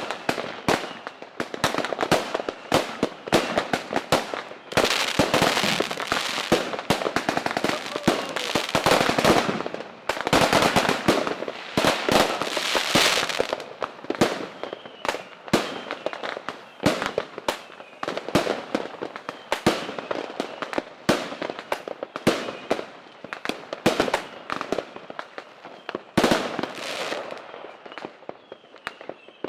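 Aerial fireworks going off in quick succession: sharp bangs and crackling reports, thickening into two dense barrages of rapid bangs, the first starting about five seconds in and the second about ten seconds in, then thinning to scattered booms.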